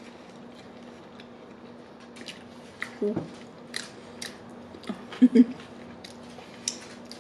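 Close-miked chewing of a soft sub sandwich: scattered wet mouth clicks and lip smacks, with two brief closed-mouth hums about three and five seconds in.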